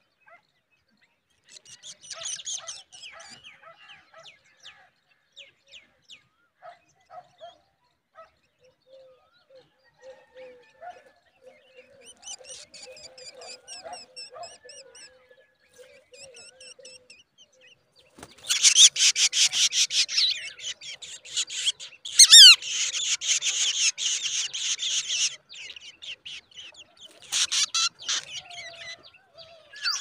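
Black drongo nestlings begging with rapid, high-pitched chirps: scattered calls at first, then a loud, dense chorus of begging for about seven seconds starting a little past halfway, and another short burst near the end.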